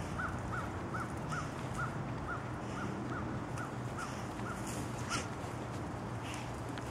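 A bird calling over and over, a short rising-and-falling note about two to three times a second, slowing and stopping about five seconds in, over a steady low hum.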